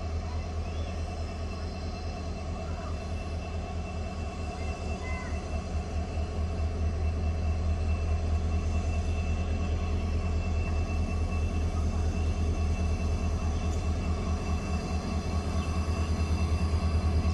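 Diesel locomotive engine running with a steady, deep throb as the train approaches, growing louder from about six seconds in.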